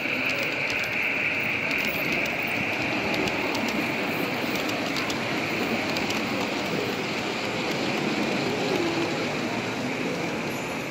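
Model railway trains running past on the layout track: a steady whirring of wheels and motors, with light clicks over the rail joints.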